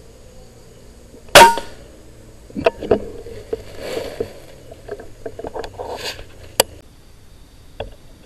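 A single loud rifle shot about a second and a half in, fired through a scope at a flying fox in a tree. It is followed by a few seconds of scattered knocks and rustling, and by another sharp click near the end.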